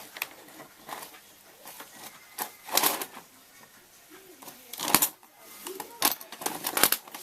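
Sharp clicks and knocks of small hard plastic and metal parts of a 1:8-scale RC buggy's rear suspension being handled and worked, the loudest about three and five seconds in.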